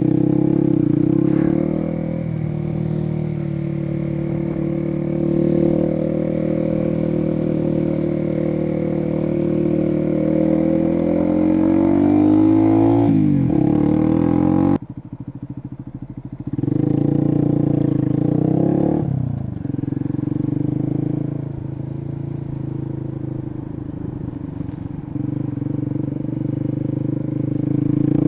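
Sinnis Hoodlum 125cc motorcycle engine under way, heard from the rider's seat: the revs climb steadily for about ten seconds, then fall sharply. The sound breaks off abruptly about halfway through, then the engine runs on, its pitch rising and falling with the throttle.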